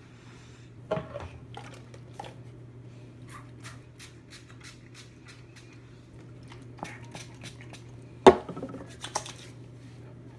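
Scattered clicks and knocks from small objects being handled close to the microphone while hair is styled, the loudest about eight seconds in. A steady low hum from a running ceiling fan lies under them.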